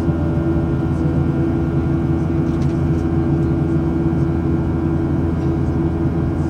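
Boeing 737-700 cabin noise: the twin CFM56-7B turbofan engines make a steady drone with a few held low tones, heard from inside the cabin.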